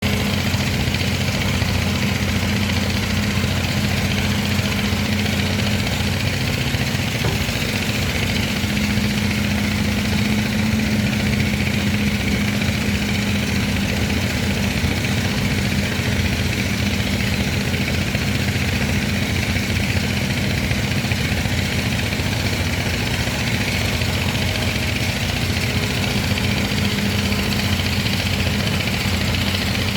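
Excavator's diesel engine running at a steady speed, with an even low hum and no revving.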